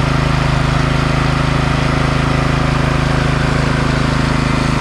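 Neva walk-behind tractor's petrol engine idling steadily while it warms up after standing unused for over a month.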